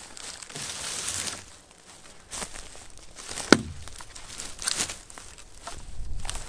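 A small axe chopping into a dry dead branch: one sharp, loud chop about halfway through and another right at the end. Between the chops, rustling and footsteps on the dry leaf litter and twigs of the forest floor.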